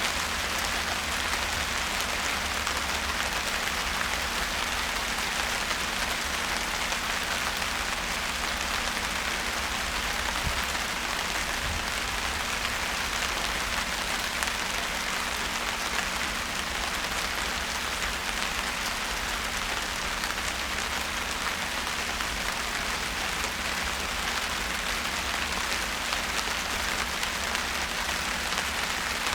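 Steady rain falling, a dense even patter of drops that does not let up.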